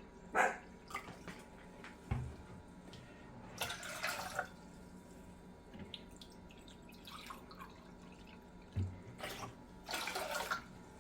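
Vinegar poured from a bottle into a measuring cup in a few short pours, with a couple of dull knocks as containers are set down on the counter.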